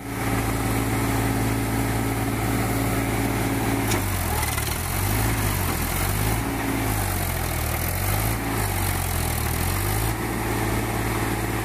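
Diesel tractor engines running under load, hauling a heavily loaded straw trolley out of a field. The engine note is steady at first, wavers up and down for several seconds from about four seconds in, then steadies again near the end.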